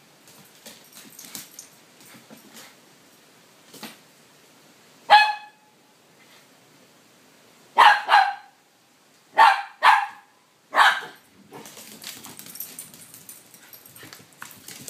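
A puppy play-barking at a cat: about five sharp barks spread over several seconds, two of them in quick succession.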